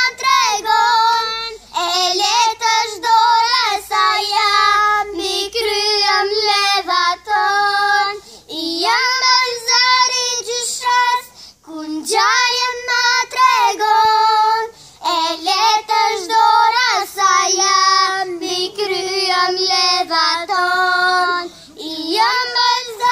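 Two young girls singing a song together, in sung phrases with short breaks between them.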